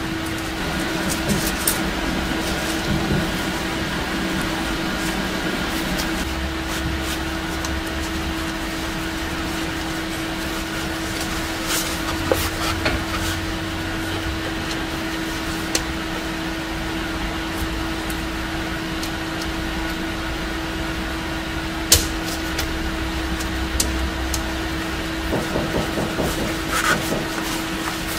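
Steady machine hum with a constant tone throughout, under light clicks and rubbing as a leather liner is worked into a steel helmet shell; one sharper click stands out late on.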